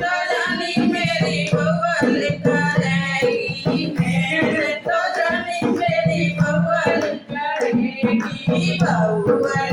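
Hindu devotional bhajan: a voice singing a melody over continuous musical accompaniment.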